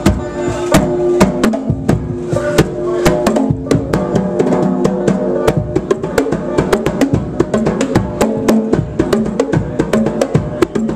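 Live percussion solo on timbales and congas: fast, dense strikes over the band's held notes.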